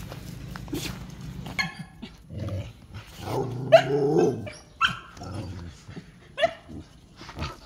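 Dogs barking in play, a handful of short sharp barks, with a longer, louder stretch of vocalising about three to four seconds in.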